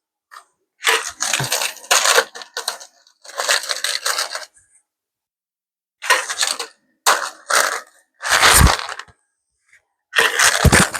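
Loose mechanical keyboard switches rattling in a box as it is shaken, in about six bursts of dense clattering clicks, with a dull knock partway through.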